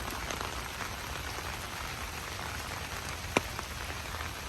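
Steady rain falling, with a few sharp single drops ticking louder than the rest; the loudest lands about three and a half seconds in.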